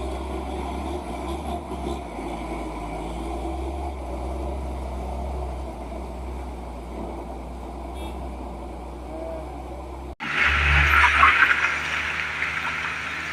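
Heavy truck engine running with a low, steady drone. About ten seconds in it cuts off abruptly and a louder hiss takes over.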